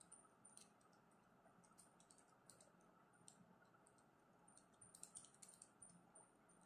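Faint, irregular clicks of calculator keys being pressed, some in quick runs, as a sum is keyed in again.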